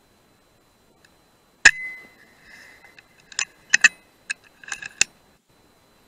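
FX Dreamline Lite .177 PCP air rifle firing once, about a second and a half in: a sharp crack followed by a short metallic ring. A quick run of metallic clicks and clinks follows as the action is cycled for the next pellet.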